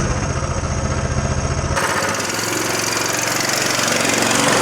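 Coleman CT200U-EXR mini bike's small single-cylinder engine running with a steady low pulse. About two seconds in the sound changes abruptly to a hissier mix in which the engine is fainter.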